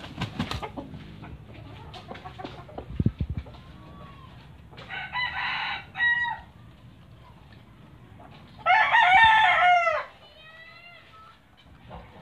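Rooster crowing: a shorter crow about five seconds in and a louder, longer one about nine seconds in, followed by a fainter falling call. Scattered knocks and taps come in the first few seconds, the loudest about three seconds in.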